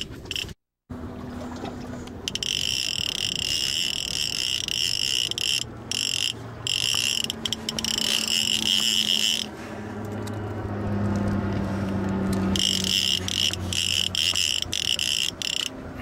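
Fishing reel whirring in long high-pitched stretches, a few seconds each with short breaks, while a big striped bass is fought on the line.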